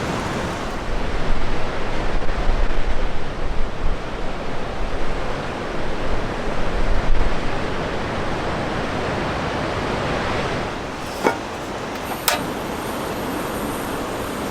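Wind gusting and rushing across the microphone, with uneven low buffeting in the first half, then a couple of sharp clicks about eleven and twelve seconds in.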